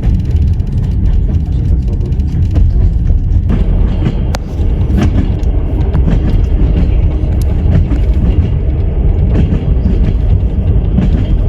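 Train running on the rails: a loud, steady low rumble with a few sharp clacks from the wheels.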